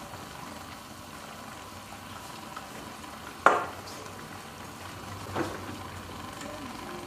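Fish broth bubbling steadily in an aluminium pot as pieces of jurel are set into it: one sharp knock and splash about halfway, and a softer one about two seconds later.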